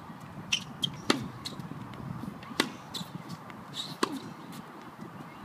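Tennis racket striking the ball three times, about a second and a half apart, with lighter taps in between.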